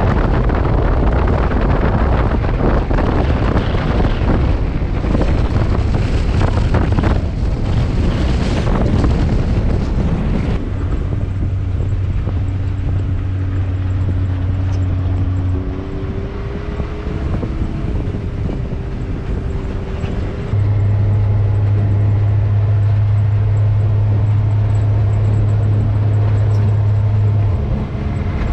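Can-Am Maverick X3 Max UTV's turbocharged three-cylinder engine running under way at a steady pace, a low drone that shifts pitch a few times and gets louder about two-thirds of the way through. Rough wind and road noise is heavier over the first ten seconds.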